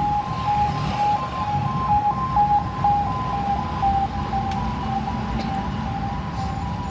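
Ambulance siren sounding a two-tone hi-lo pattern, alternating between two steady pitches, over the low rumble of road traffic.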